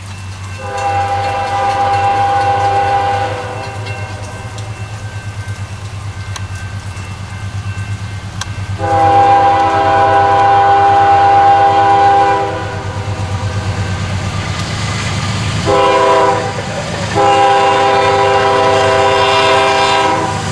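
Diesel freight locomotive sounding its multi-tone air horn in the grade-crossing pattern, long, long, short, long, over the steady low rumble of the approaching train's engines.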